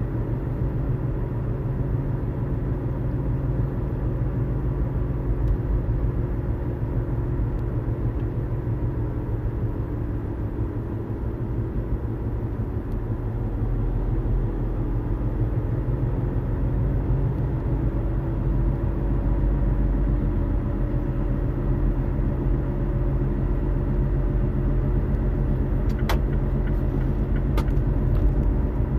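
Low rumble of a Mazda CX-5 driving, heard inside the cabin, with the low thrumming noise the owner hears while driving and is trying to diagnose. A few short clicks near the end.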